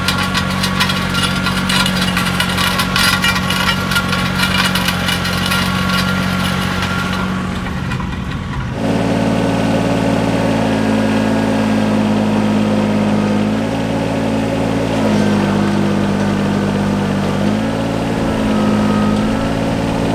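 A vehicle engine running steadily with a rapid clatter; about nine seconds in the sound changes abruptly to an engine idling, its speed stepping up and down a few times.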